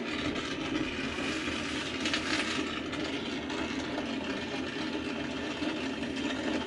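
Brazing torch flame hissing steadily while a copper refrigerant line on an evaporator coil is brazed to seal a leak, with a brief louder hiss about two seconds in.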